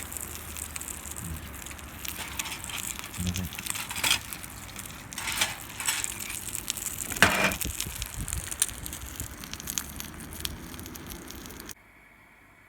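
Wood-pellet fire crackling in a Solo Stove, with scattered pops and rustling and a louder burst about seven seconds in. The sound cuts off sharply near the end.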